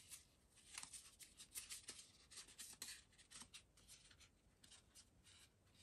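Faint, irregular rustling and crackling of patterned designer paper being creased and folded by hand.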